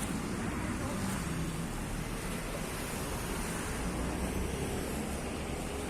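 Steady outdoor noise of street traffic, with wind rumbling on the microphone.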